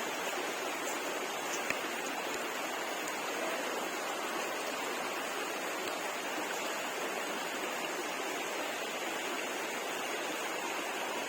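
Steady rush of water falling and flowing at a waterfall.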